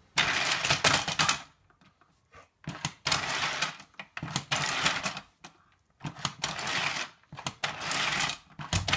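Weebles Weebledown Farm playset's plastic windmill mechanism spinning with a rapid rattling click as it is pressed, in about five bursts of a second or so each.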